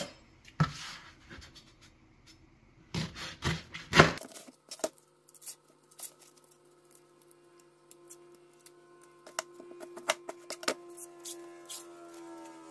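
Green husks being ripped and stripped off ears of sweet corn by hand: sharp tearing and rustling bursts, loudest in the first four seconds, then scattered rustles and snaps. A faint steady hum with a few held tones runs underneath in the second half.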